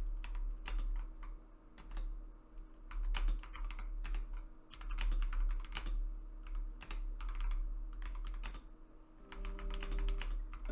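Typing on an Akko 5075S 75% mechanical keyboard with Akko CS Sakura switches: a quick, irregular run of key clicks, with short pauses between flurries.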